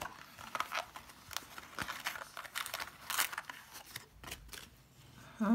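Clear plastic blister packaging being handled and pried open: irregular crinkles and sharp clicks that thin out after about three seconds.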